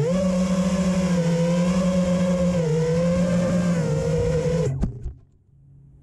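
Armattan Chameleon FPV quadcopter's brushless motors and propellers whining at a steady throttle, the pitch wavering slightly, then cutting off suddenly about three-quarters of the way through with a couple of clicks.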